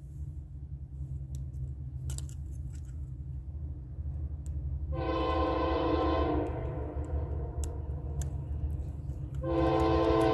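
Approaching Norfolk Southern diesel locomotive: its low engine rumble grows louder, and its multi-chime air horn sounds twice. The first blast comes about halfway through and fades away; the second starts near the end and is the loudest sound.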